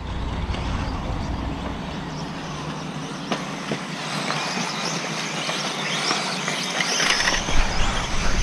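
Electric RC off-road buggies racing on a dirt track: a steady mix of high motor whine and hiss.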